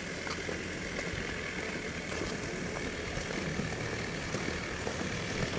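A squad marching in boots on a hard outdoor court: faint, irregular footfalls over a steady low background rumble.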